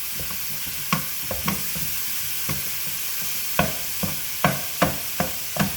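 Meat frying and sizzling in a pan while a utensil mashes and breaks it up, knocking and scraping against the pan. The knocks come only now and then at first and more often from about halfway through.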